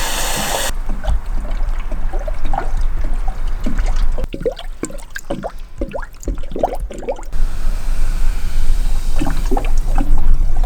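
Water being poured into a car radiator as the cooling system is filled, running and gurgling, with a run of short bubbly glugs in the middle.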